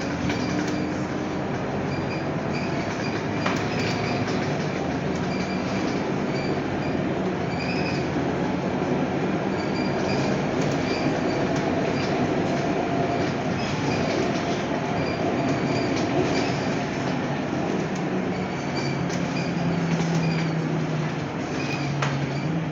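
Cabin running noise of a Scania K230UB single-deck bus on the move: the steady rumble of its five-cylinder diesel engine under road and body noise, with short high squeaks coming and going.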